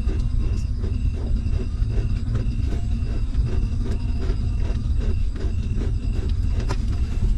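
Newborn puppies suckling at their mother, with short wet smacking clicks a couple of times a second over a steady low rumble.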